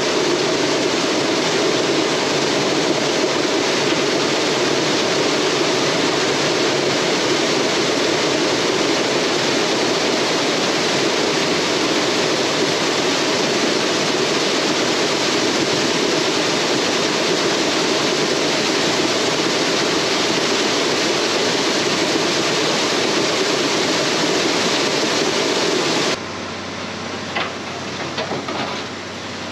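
Soybeans being dumped into a grain pit and auger: a loud, steady rush of pouring beans and running machinery. It stops abruptly near the end, leaving quieter rattles and clicks.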